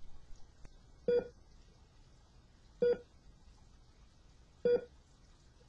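Three short electronic beeps, identical and evenly spaced about two seconds apart.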